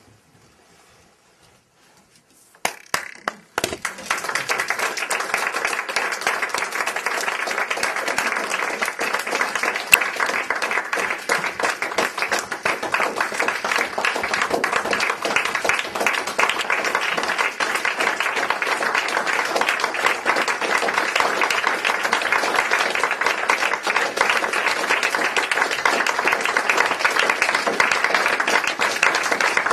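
Audience applauding: a few first claps about three seconds in, then dense, steady applause that keeps going.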